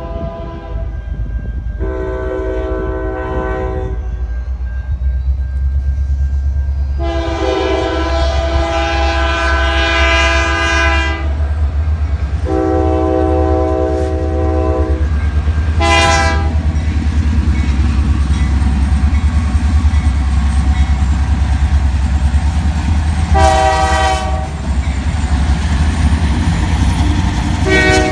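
Diesel freight locomotive horn sounding a series of about six blasts, three long ones followed by shorter ones, over the steady low rumble of the passing train.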